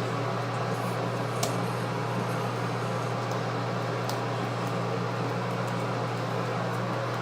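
Steady low machine hum with hiss, like a fan or air conditioner running, with a couple of faint clicks, one about a second and a half in and one about four seconds in.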